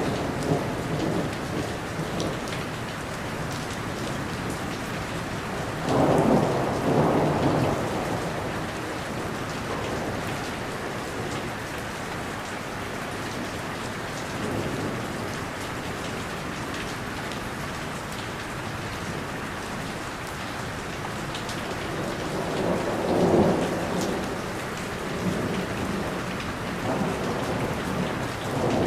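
Steady heavy rain falling, with rolls of thunder rumbling about six seconds in and again near 23 seconds, plus a fainter one in between.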